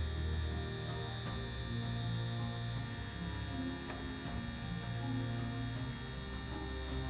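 Steady electrical hum with a high hiss from a small running appliance, under quiet background music.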